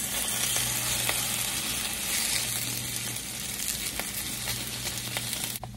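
Thinly sliced potatoes sizzling steadily in hot olive oil in a cast-iron skillet as they brown, with a few light clicks and scrapes of a metal fork turning them. The sizzle cuts off sharply near the end.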